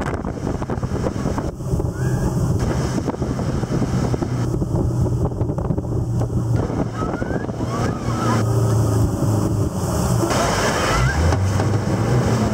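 Outboard motor of a motorboat running steadily at speed, a constant low hum. Wind buffets the microphone over the rush of the churning wake.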